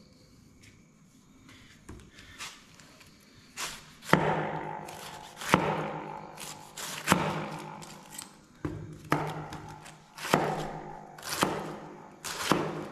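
Kitchen knife slicing through a head of green cabbage: about ten sharp cuts at uneven intervals, starting about two seconds in, each with a crisp crack that trails off as the leaves split.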